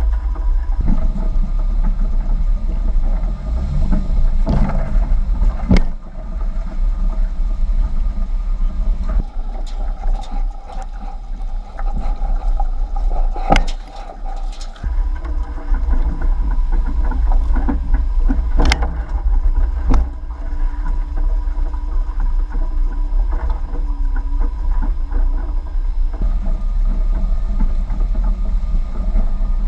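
Jeep driving slowly over a bumpy dirt off-road track: steady low engine and drivetrain rumble, with a few sharp knocks as it goes over the rough ground.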